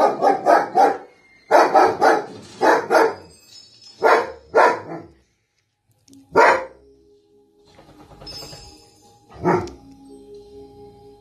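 German Shepherd barking at the TV: quick runs of several loud barks in the first three seconds, then a pair, then single barks that grow sparser. Film music from the TV plays underneath.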